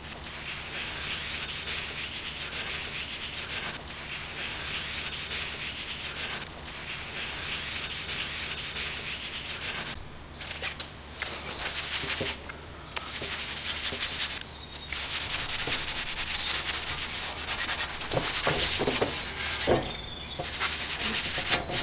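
A cloth rag rubbing back and forth over the flat steel blade of an old Japanese maebiki saw, wiping it down with oil in a steady scrubbing hiss, broken by a few short pauses. A few light knocks come near the end.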